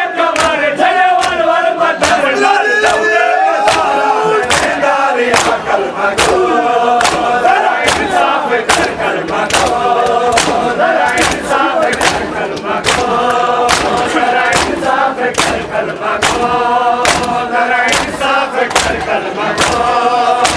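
A crowd of men chanting a Saraiki noha in unison, with rhythmic matam (hands slapping on bare chests) at about two strikes a second.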